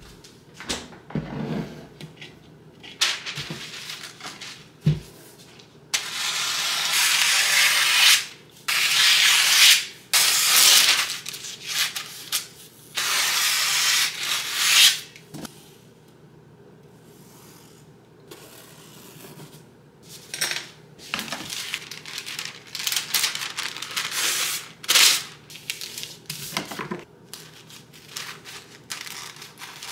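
Parchment paper being pulled off its roll and cut with scissors: a few light knocks at first, then long loud rustling strokes as the sheet is drawn out and cut, then many short crisp snips.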